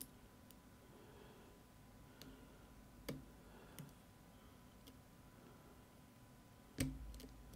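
Faint, scattered clicks of a pick pressing down the sliders of a Fontaine pump lock, with a few single ticks spread apart and a louder knock near the end.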